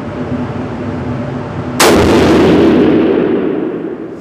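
A single 300 PRC rifle shot from a Seekins Havak PH2 firing Hornady Precision Hunter 212 grain ELD-X, a sudden crack about two seconds in followed by a long rolling echo that fades away. A steady low hum runs underneath.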